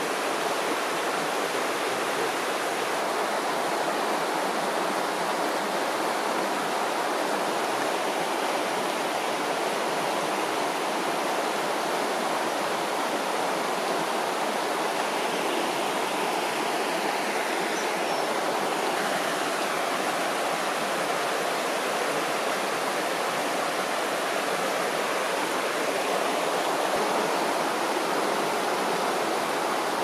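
Shallow river water running over rocks, a steady even rush.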